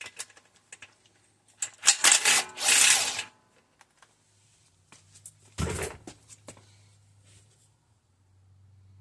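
Hand tools and metal engine parts being handled: scattered clicks and knocks, a loud run of rapid clicking and rasping about two seconds in, and one heavy thump near the middle.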